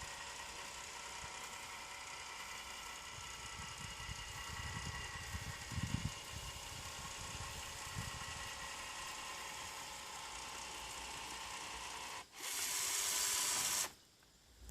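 Small power-tool motor running steadily with a faint whine, as from a sealant dispensing gun. About twelve seconds in it gives way to a loud hiss lasting about a second and a half, which cuts off sharply.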